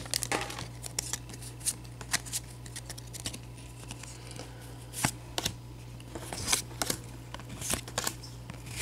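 Trading cards being flipped through by hand: scattered soft clicks and snaps of card stock sliding off one another, with a brief crinkle of the foil pack wrapper near the start. A steady low hum runs underneath.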